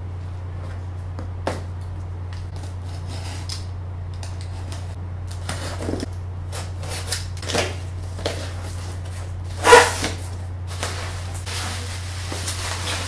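Cardboard shipping box being opened by hand: a box cutter slitting the packing tape, cardboard flaps scraping and rustling, and bubble wrap being pulled out, with a sharp rip or scrape about ten seconds in the loudest. A steady low hum runs underneath.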